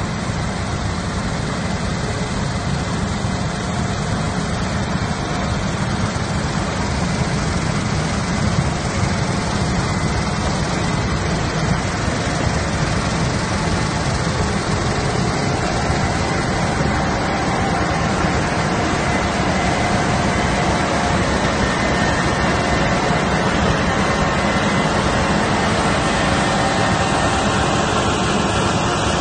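Case IH Axial-Flow 9240 combine harvester running under load while cutting and threshing wheat: a steady, dense engine and machinery drone that grows a little louder as the machine comes past.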